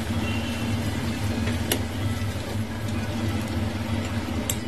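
Marinated mutton frying in oil in an aluminium pressure cooker as it is stirred with a steel ladle, which clinks against the pot twice, over a steady low hum.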